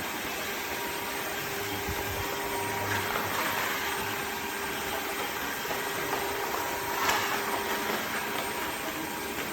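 Dreame H12 Pro cordless wet-dry vacuum mop running steadily in auto mode: a constant motor whir with a steady hum under it.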